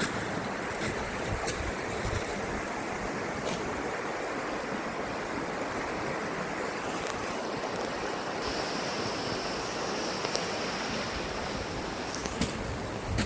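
Steady outdoor rushing noise, with a few faint ticks scattered through it.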